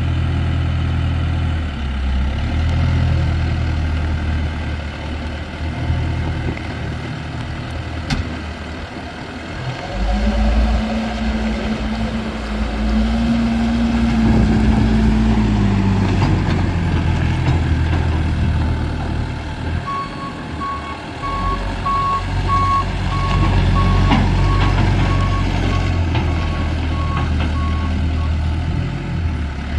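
Case 580M Turbo backhoe's diesel engine running, its pitch rising and holding for several seconds about ten seconds in, then dropping back. From about twenty seconds in, its backup alarm beeps about twice a second for some eight seconds while the machine reverses.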